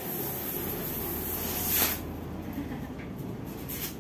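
Hissing rustle of packaging being handled and pulled off a new washing machine, with one louder swish a little under two seconds in.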